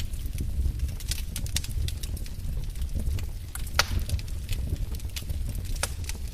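Wood fire in a fireplace crackling, with irregular sharp pops and snaps over a steady low rumble of the flames. One pop about four seconds in is louder than the rest.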